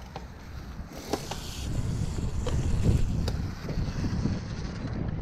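Wind buffeting the microphone over the rumble of a cyclocross bike's tyres on a dirt forest trail, with several sharp clicks and rattles from the bike over bumps. The rumble gets louder about two seconds in.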